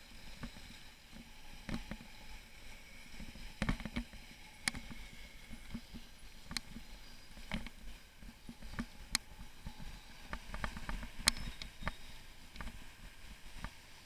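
Bicycle rolling over cobblestones: irregular clicks and rattles from the bike and its mounted camera over a low road rumble.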